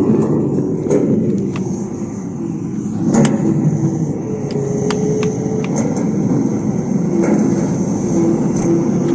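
A vehicle motor running steadily with a wavering pitch, with scattered sharp clicks and knocks over it.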